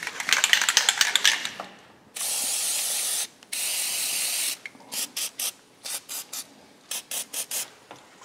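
Aerosol battery terminal protector spray: the can rattles rapidly as it is shaken, then gives two long hisses of about a second each and a string of short spurts as the film goes onto the battery terminals.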